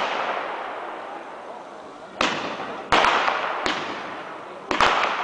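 Fireworks display: aerial shells bursting overhead. The first burst comes about two seconds in, then sharp bangs near three and three and a half seconds, and two more close together near five seconds. Each bang trails off in a long, fading wash of noise.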